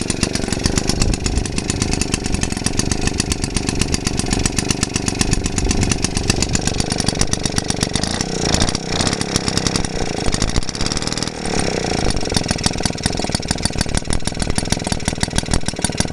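JAP Model 0 stationary engine running well, with a steady, rapid firing beat. The beat turns briefly uneven about halfway through, then settles again.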